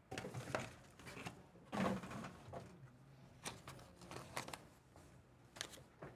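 Hands opening a trading-card box and sliding a red card sleeve out of it: irregular rubbing and scraping of cardboard and packaging, with a few light clicks.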